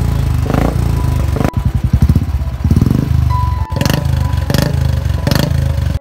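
Royal Enfield motorcycle running on an aftermarket exhaust with a loud, rapid, low thumping beat. The note swells in short louder surges about once a second.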